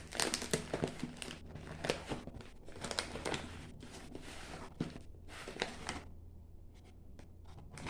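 Plastic snack wrappers and packets crinkling and rustling in irregular handfuls as they are handled and taken out, with a lull near the end.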